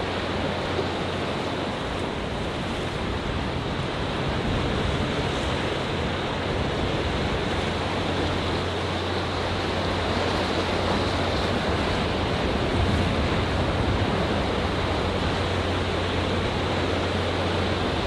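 Rough Atlantic waves washing among coastal rocks: a continuous rushing surf that grows a little louder after about four seconds, with no single crash standing out.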